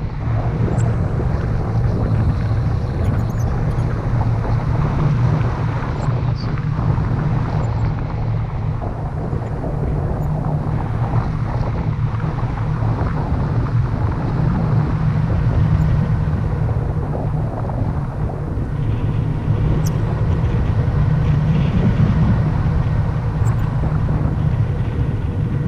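Steady wind rushing over the microphone during a tandem paraglider flight, a loud, even low rumble with no engine, since the glider is unpowered.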